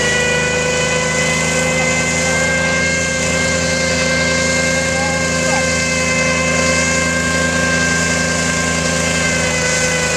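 A 1948 truck's small-block V8 held at steady high revs through a burnout, its rear tyres spinning and smoking on the tarmac, with a loud rushing hiss under the engine note.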